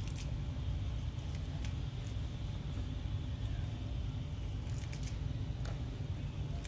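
Steady low rumble with scattered short, crisp clicks: a macaque crunching into a cucumber.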